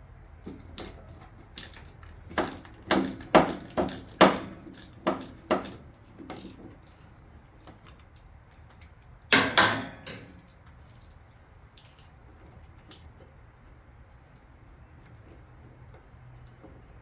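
Metal clinks and clatter from hand tools and loose bolts being handled: a run of sharp, irregular clinks over several seconds, then a louder clatter about halfway through, followed by a few faint ticks.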